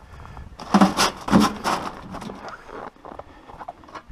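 Camping gear being packed into a pulk sled: a sheet-metal tent stove and its stovepipe set down on a plastic tarp. There are several short knocks and rustles about a second in, then quieter scraping and handling.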